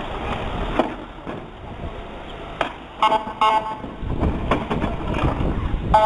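Short horn blasts from a departing police vehicle: two quick honks about three seconds in and another at the end, over the low rumble of vehicles pulling away.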